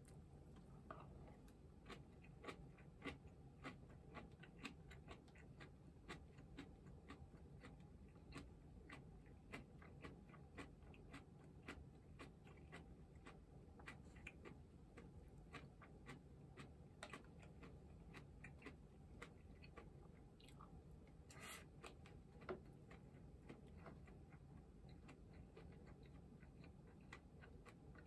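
Faint eating sounds: crunchy chewing of shredded cabbage salad and chopsticks clicking against the dishes, in irregular small clicks over a low room hum, with one sharper clack about two-thirds of the way through.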